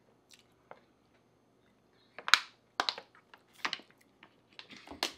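Thin plastic water bottle crinkling and crackling in a hand as it is drunk from and squeezed: a string of short sharp crackles starting about two seconds in.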